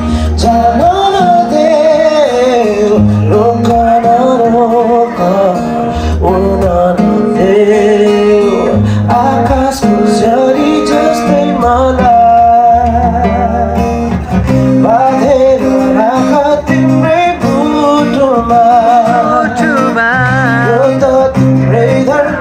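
Live acoustic guitar strummed while a man sings a melody into a microphone, amplified through PA speakers, with held deep bass notes underneath.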